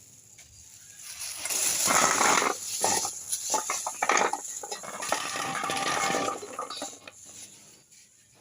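Kitchen handling noise: dense clattering and small clinks, as of dishes and food being handled, starting about a second in and dying away about seven seconds in.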